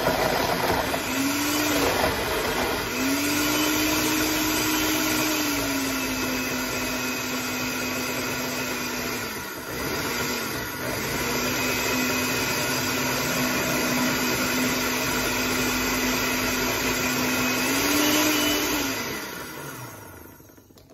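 Countertop blender running, blending ice, frozen fruit, yogurt, sherbet and apple juice into a smoothie. The motor's pitch rises and falls a few times, dips briefly about halfway, and the motor winds down near the end.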